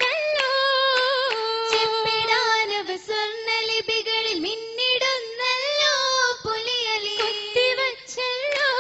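Young female voices singing a Malayalam Oppana (Mappila) song in unison, one wavering melodic line with held and sliding notes. Hand claps keep time under the song.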